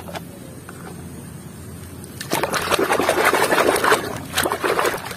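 Foamy, muddy water sloshing and splashing in a basin as a hand swishes a small toy motorbike through it. Quieter at first, then it turns busier and louder about two seconds in.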